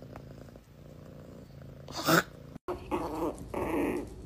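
A small black-and-tan puppy growling in short, wavering grumbles during the second half. Before it there is a faint steady purr and a brief sweeping noise.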